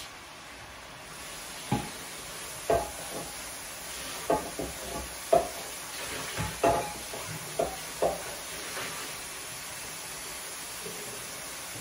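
Chicken pieces cooking in hot sofrito in a skillet, a steady sizzle. A spoon stirs the pan and clinks against it a dozen or so times.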